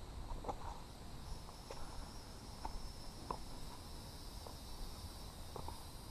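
Footsteps of a hiker stepping over rock slabs, a short scuffing knock roughly every second. A steady high insect buzz runs under them from about a second in.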